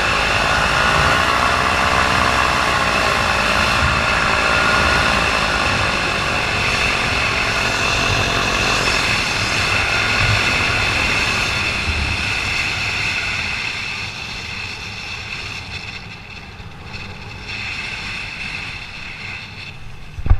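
Paramotor engine and propeller running in flight, with wind rush; the engine is losing power. Its pitch wavers up and down in the first few seconds, and the sound grows quieter from about two-thirds of the way through.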